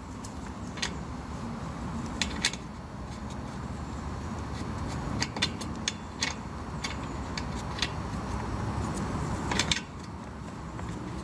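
Light metallic clinks and taps, scattered irregularly, the sharpest a quick cluster near the end, from tools and brass service fittings being handled. They sit over a steady low background hum.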